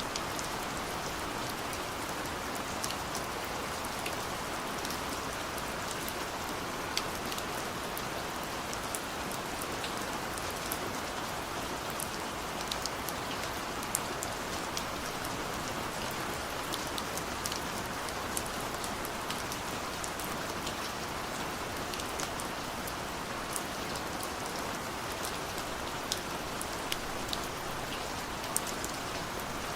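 Steady rain falling, an even hiss with scattered sharp drop taps on a surface.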